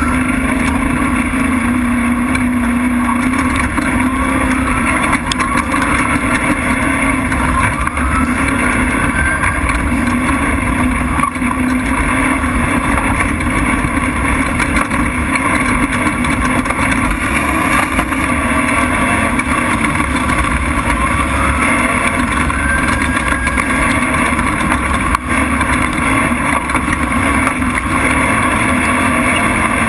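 Off-road race truck's engine running hard under steady loud driving noise. The pitch rises several times in the first eight seconds and again about twenty seconds in as it accelerates.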